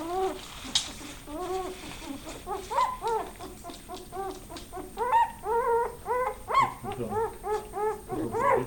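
Norwegian Lundehund puppies whimpering: many short, high, rising-and-falling squeaks, a few at first and coming thick and fast from about five seconds in.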